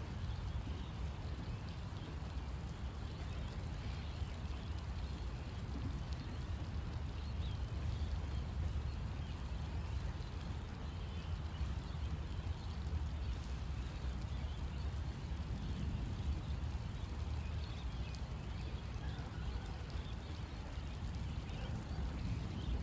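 Thunderstorm ambience: a steady low rumble under a faint, even hiss of rain.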